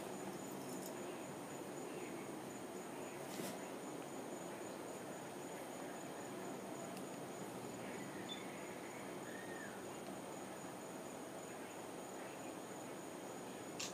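Night insect chorus: a steady, high-pitched trilling that holds throughout, over a soft background hiss, with a single click about three and a half seconds in.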